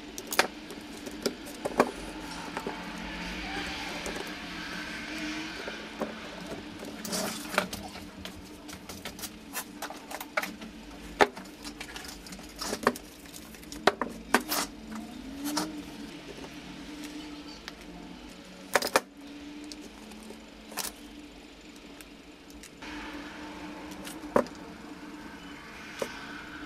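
Irregular clicks and knocks of hand tools and plastic parts being handled and set down on a workbench: a screwdriver at the switch terminals of an opened drill housing, then a hot glue gun. A steady low hum runs underneath.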